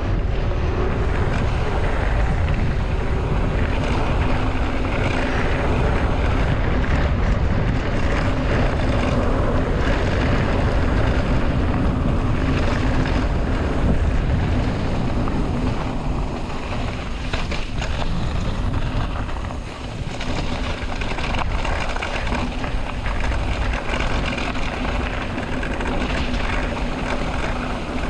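Wind rushing over the microphone of a camera on a moving mountain bike: a steady low rumble that eases briefly about twenty seconds in.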